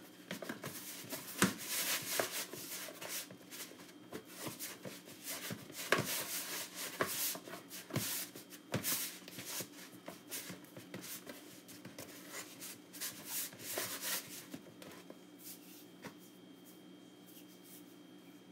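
Hands kneading flour dough in a plastic tub: irregular rubbing and squishing with a few sharp knocks, growing quieter after about fifteen seconds.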